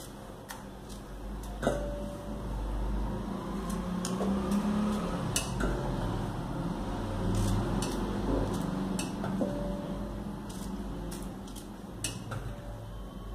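Knife cutting okra on a cutting board in irregular taps, with cut pieces dropped into a steel bowl that rings briefly a few times.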